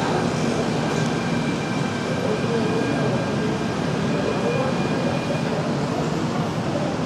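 Steady noise of a busy model railway hall: HO model trains running, with faint high steady whines over an even background.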